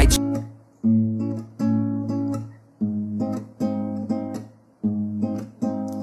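Background music: an acoustic guitar strumming chords in a steady rhythm, with brief gaps between strums and no vocals.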